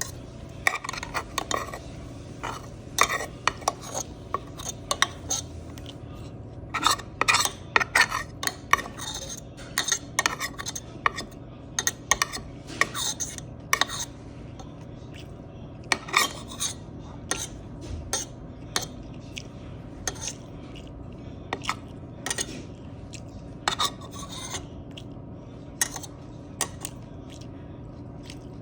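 Cutlery scraping and clicking against a plastic lunchbox container in short, irregular strokes.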